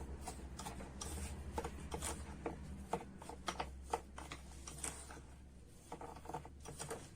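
Cornstarch and sugar being stirred together dry in a bowl: irregular light scrapes and taps of the utensil against the bowl, over a low steady hum.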